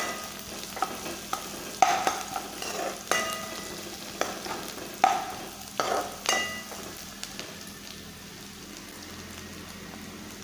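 A steel spoon scrapes and knocks against a steel kadhai, stirring onions, peanuts, curry leaves and mustard seeds frying in oil, over a steady sizzle, with brief metallic rings on some strokes. The stirring stops about seven seconds in, leaving only the sizzle.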